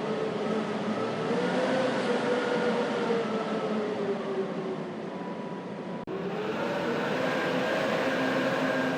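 Blizzard wind howling in a steady rush, with whistling tones that slowly rise and fall in pitch. About six seconds in, the sound breaks off for an instant and picks up again.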